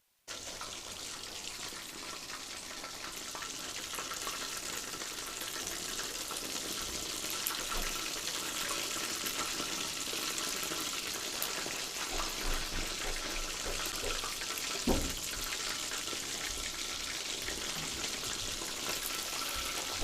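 Spiced chicken pieces deep-frying in hot oil: a steady sizzle, with one brief knock about three-quarters of the way through.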